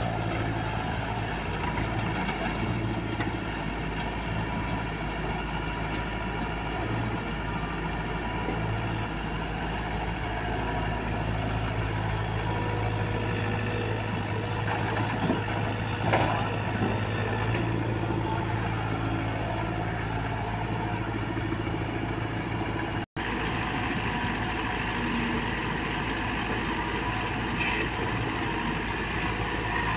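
Diesel engines of an SDLG E680F crawler excavator and a farm tractor running steadily with a low hum while the excavator digs and loads soil. A couple of brief knocks come about fifteen seconds in, and the sound drops out for a split second about two-thirds through.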